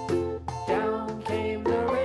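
Upbeat children's background music with a steady beat and sharply struck notes.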